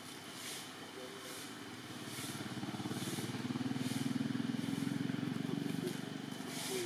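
A motor vehicle's engine running as it passes, swelling to its loudest about four to five seconds in and then fading.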